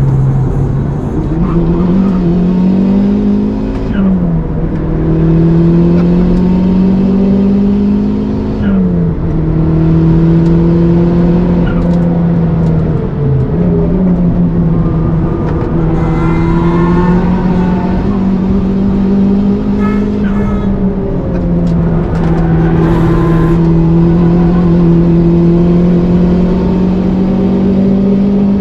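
Toyota Starlet Glanza V's turbocharged four-cylinder engine running hard under load. Its pitch climbs through each gear and drops sharply at the gear changes, several times over.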